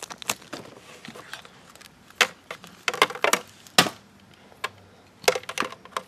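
Handling noise: irregular sharp clicks and knocks as a power adapter and its cable are taken out and untangled, the plug and cord tapping against things.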